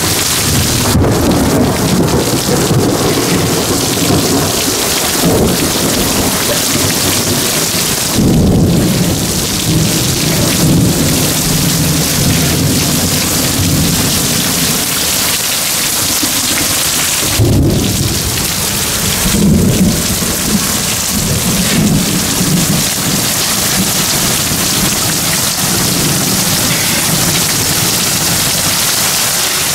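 Heavy rain pouring steadily onto grass and wet ground during a severe thunderstorm, with low thunder rolling underneath. The thunder swells loudest about eight seconds in and again from about seventeen to twenty seconds.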